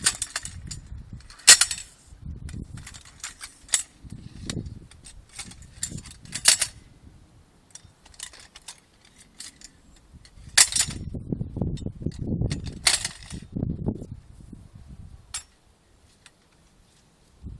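Parts of a sieve column being handled and taken apart: scattered clicks and knocks over low handling rumble, with four sharp clanks spread through, quieter near the end.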